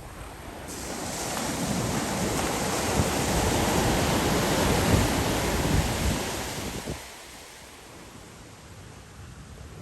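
A wave breaking and washing up the beach, swelling about a second in and dying away near seven seconds, with wind buffeting the microphone.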